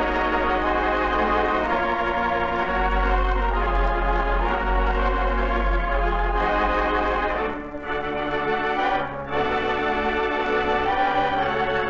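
Title music of sustained, organ-like held chords that change every few seconds, with two brief dips between chords near the end.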